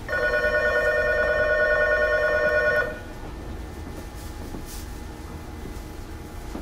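Electronic railway departure bell ringing with a fast warble for about three seconds, then cutting off: the signal that the train is about to leave and the doors will close. A steady low rumble continues beneath it.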